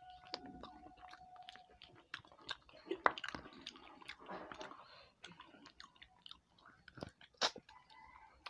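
Chewing and wet mouth sounds of a person eating rice and fish curry by hand: a steady scatter of small smacks and clicks, with a sharper click about three seconds in and another near the end.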